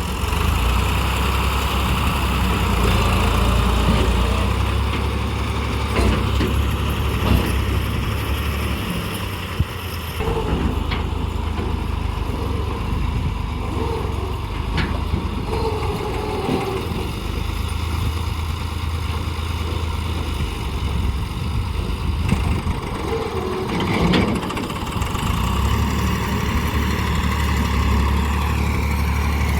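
JCB backhoe loader's diesel engine running steadily while it digs and loads mud, its drone easing off and coming back a few times. There are occasional short clanks.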